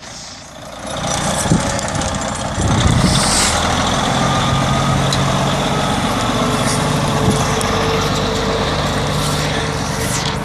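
Detroit Diesel Series 60 12.7-litre inline-six turbo diesel of a 1992 Freightliner FLD semi tractor running as the truck pulls away, its steady note building about a second in and again near three seconds, then holding steady.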